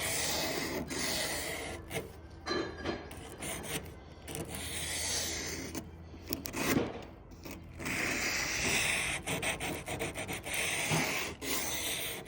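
Plumber's emery cloth (fine aluminium-oxide sanding tape) rubbed by hand along a rough stainless-steel body-panel edge of a Tesla Cybertruck, smoothing off the sharp edge. It is a run of rasping strokes with brief pauses, the steadiest stretch coming near the end.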